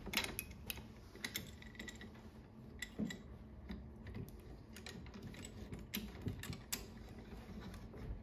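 Small irregular clicks and ticks of a steel bolt being unscrewed by hand and drawn out of a folding chair's plastic hook bracket, metal tapping on metal and plastic.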